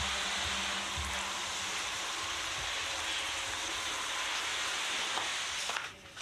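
Garden hose pistol-grip spray nozzle spraying water in a steady hiss, which stops abruptly near the end.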